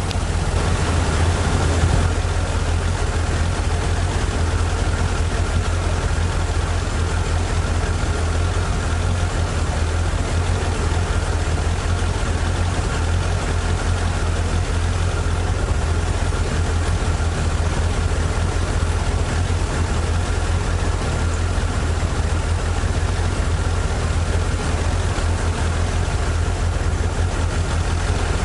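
Toyota 4A-G 1.6-litre twin-cam four-cylinder engine of an AE86 Trueno idling steadily.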